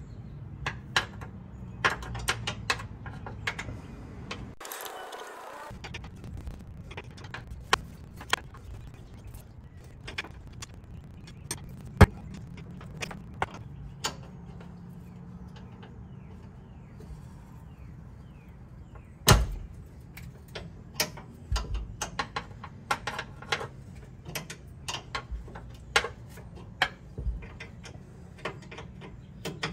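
A hand wrench working the 10 mm flange nuts at the top of a Toyota Tacoma's rear brake lines as they are loosened: irregular sharp metallic clicks and clinks, the loudest about twelve and nineteen seconds in.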